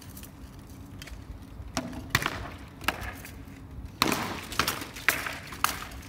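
Sharp knocks of rattan weapons striking shields and armour in armoured combat sparring: a few scattered blows, then a quicker flurry starting about four seconds in.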